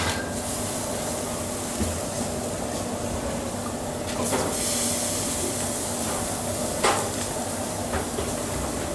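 Restaurant kitchen at work: a steady hum under a few scattered knocks and clinks, with a brief swell of hiss about four seconds in.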